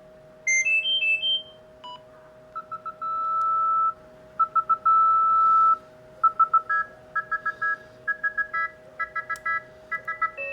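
Panasonic GD75 mobile phone playing its monophonic beep ringtones: a short rising three-note jingle, then pulsing beeps that settle into a held tone twice, then fast chirping two-note beep patterns through the second half.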